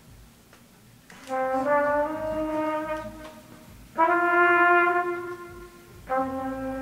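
Trumpet playing three long held notes, each swelling in and fading. The first comes in about a second in, the second is a little higher, and the third starts near the end.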